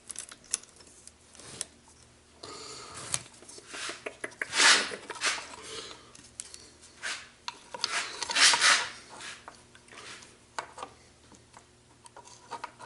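Chainsaw guide bar and chain being handled on the saw body while the bar's hole is worked onto the chain tension pin: scattered metal clicks and knocks, with two louder scraping rubs about four and eight seconds in.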